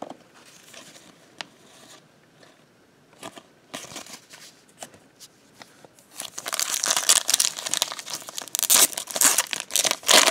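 Trading cards being handled with a few light clicks, then a foil card-pack wrapper crinkling and tearing open from about six seconds in, much louder than the card handling.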